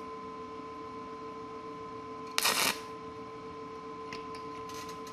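A steady hum, and about two and a half seconds in one short crackling burst as the stick-welding electrode is scratched on the work and the arc fails to catch: a failed arc start.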